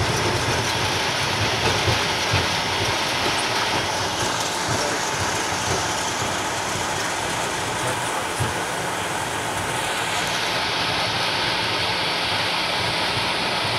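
Cockpit noise of a Bombardier Global 6000 business jet rolling out on the runway after landing: a steady rumble of the wheels and engines with a few light knocks in the first seconds. The high hiss thins about ten seconds in as the jet slows to taxi speed.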